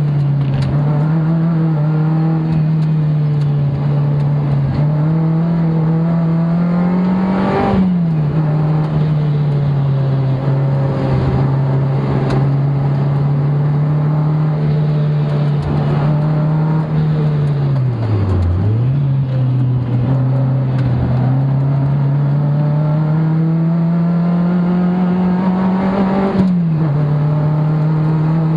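Sports car engine heard from inside the cabin while lapping a race track: a steady drone under load that slowly climbs in pitch. The pitch drops sharply with an upshift about a quarter of the way through and again near the end, and it dips briefly about two-thirds of the way through.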